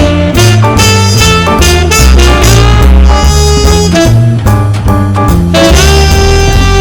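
Background music: an upbeat jazz or swing tune with horns and a steady walking bass line.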